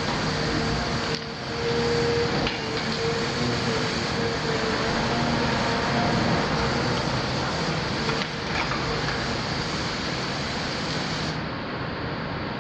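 Caterpillar 336F excavator's Cat C9.3 diesel engine running steadily, with a steady mid-pitched tone running through it and a few faint clicks.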